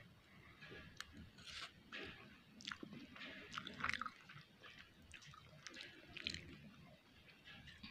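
Close-up mouth sounds of someone chewing a mouthful of noodles: an irregular run of soft wet smacks and clicks.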